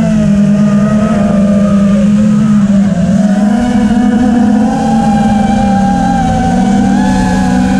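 FPV quadcopter's electric motors and propellers buzzing steadily, the pitch shifting slightly up and down with the throttle: dipping about three seconds in, then rising again.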